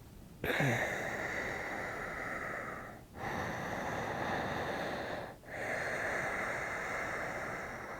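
A person breathing deeply and audibly, three long breaths of about two to three seconds each, the first starting about half a second in.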